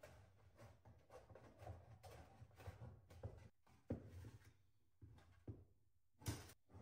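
Hand snips cutting thin galvanized sheet metal: a run of faint clipping strokes, roughly two a second.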